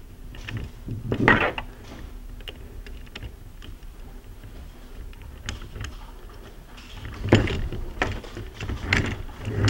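Rescue rope being handled while a barrel knot is tied in it: the rope rustling and sliding through the hands, with a few short knocks, louder about a second in and again in the last few seconds.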